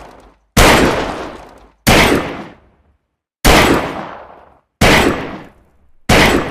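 Saturday night special revolver firing: five single shots about one and a third seconds apart, each sharp report fading away over roughly a second.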